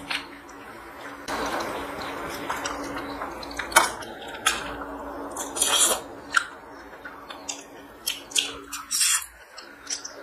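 Eating rice and curry by hand from a steel plate, heard close up: fingers squishing and mixing rice against the metal, with sharp clicks and wet chewing and lip-smacking sounds, over a faint steady hum.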